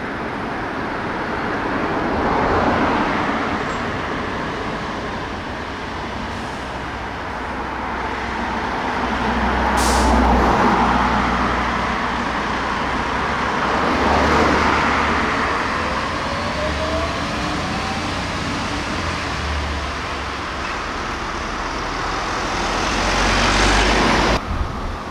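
Road traffic passing, with a Volvo fire engine driving by: engine rumble and tyre noise that swell and fade about four times as vehicles go past.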